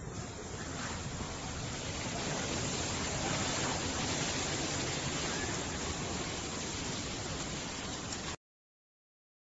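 Steady rushing noise of typhoon wind and rain, swelling over the first couple of seconds and then cutting off suddenly a little after eight seconds in.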